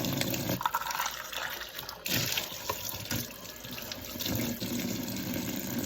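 Kitchen sink tap running while dishes are washed under it, the flow dipping about half a second in and picking up again later, with a few knocks of dishes against the sink around the middle.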